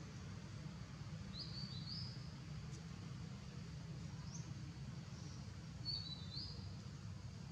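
Birds chirping: a few short, high notes in small clusters, about a second and a half in and again around six seconds, over a steady low background rumble.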